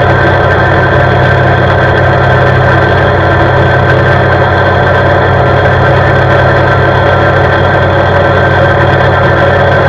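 CFMoto CForce 520 ATV's single-cylinder engine running at a steady road speed, its pitch holding level throughout.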